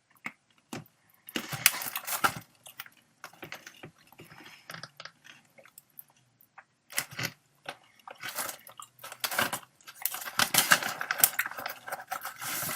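Crinkling and rustling of a resealable plastic snack pouch in irregular bursts, with crunchy chewing of the snack between them.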